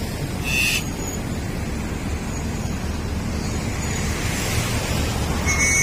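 Steady rumble of traffic on a busy multi-lane road with motorcycles and cars, with wind noise on the microphone. Two short high-pitched beeps cut through, one about half a second in and one near the end.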